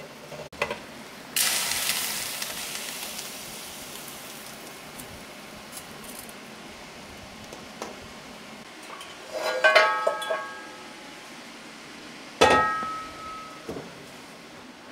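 Kitchen work sounds. A hiss starts suddenly about a second and a half in and fades slowly. Later, kitchenware clinks and rings: a cluster of clinks around ten seconds in, then one sharp, louder clink with a ringing tone near the end.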